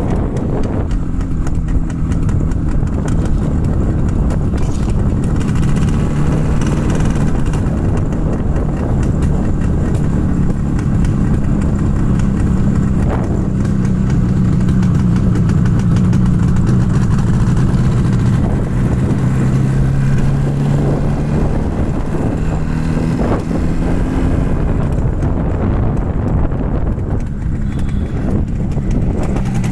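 Yamaha RD350's air-cooled two-stroke parallel-twin engine running steadily while riding. The pitch steps up a little about two-thirds of the way through and dips briefly near the end as the throttle changes.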